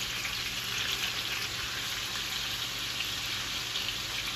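Asparagus-stuffed chicken thighs searing in a hot skillet, a steady sizzle.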